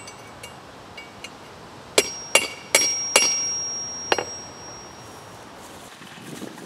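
Hammer striking the bare face of a steel anvil: a few light taps, then five sharp strikes within about two seconds, the anvil ringing with one high, clear tone that fades away over about two seconds.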